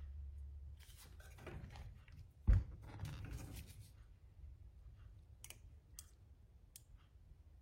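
Small, scattered metal clicks as steel bearing balls are set into a bicycle rear hub's bearing cup, with one louder knock about two and a half seconds in.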